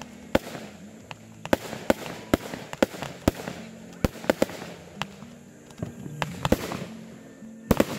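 Aerial fireworks bursting in a quick string of sharp bangs, roughly two a second, with a crackling hiss between them and a short lull past the middle.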